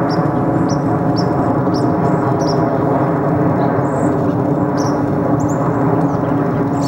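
A small bird chirping over and over, short high downward notes about twice a second, over a loud steady drone.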